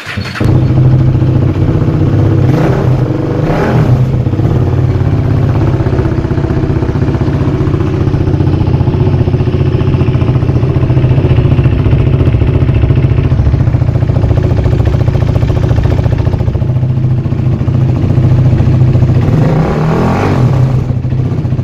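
KTM RC 390 single-cylinder engine starting up and running loudly through its stock muffler, which has been drilled with four 10 mm holes. It idles with short throttle blips about two and a half and three and a half seconds in, and revs again near the end.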